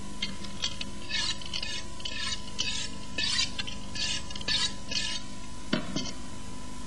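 A knife making about ten short cutting and scraping strokes through the fat on the underside of a beef tenderloin on a cutting board, as the fat is trimmed off. A single knock against the board comes near the end.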